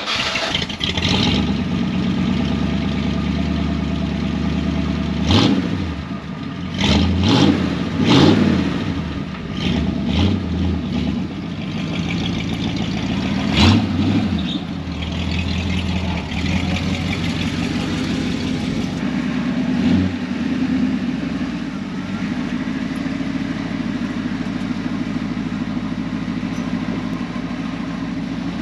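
1929 Ford Model A hot rod truck's engine running. It is revved in several short blips through the first half and then settles to a steady idle.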